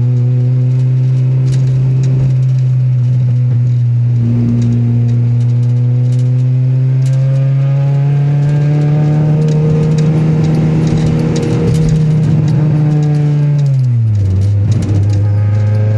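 Engine of a GSR car that has a misfire, running steadily at a held speed with irregular ticking over it. The engine note creeps up slightly, then drops back about fourteen seconds in.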